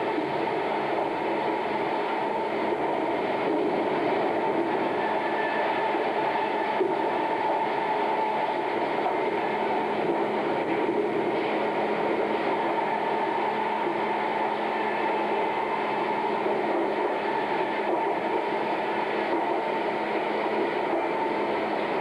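Sawmill machinery at the double-arbor bull edger running steadily: a continuous loud mechanical din with a steady hum through it.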